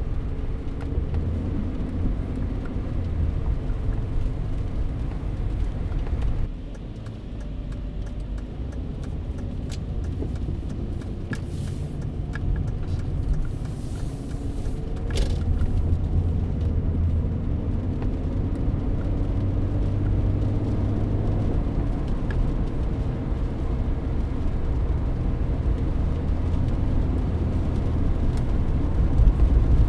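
Mercedes-Benz W124 heard from inside the cabin while driving: steady engine hum and tyre and road rumble. The sound drops suddenly about six seconds in, then rises again after the middle as the car picks up speed.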